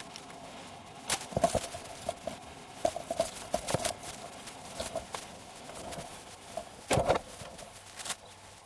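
Irregular clicks, knocks and rustles of someone moving about in a patrol SUV's driver's seat and climbing out, with a loud thud about seven seconds in as the car door is shut.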